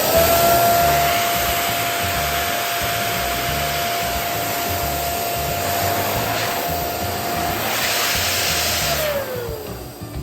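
Electric balloon pump inflating a balloon: the motor spins up quickly, runs steadily with a hum and a rushing air hiss, then winds down with a falling pitch near the end.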